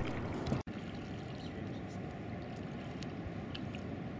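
Steady outdoor noise of wind and shallow water on a coral reef flat, dropping out for an instant about half a second in, with a few faint ticks.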